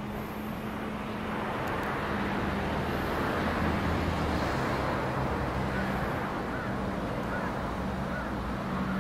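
A motor vehicle going by: a rush of noise that swells over the first few seconds and stays up, over a steady low hum, with a few faint short chirps in the second half.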